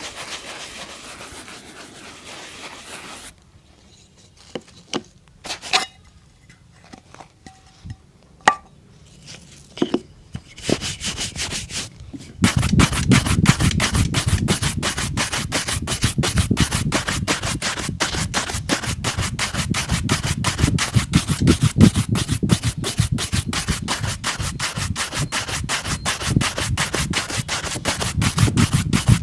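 A boot being scrubbed with a shoe brush in fast, even back-and-forth strokes, starting about twelve seconds in. Before that come quiet handling sounds and a few small knocks.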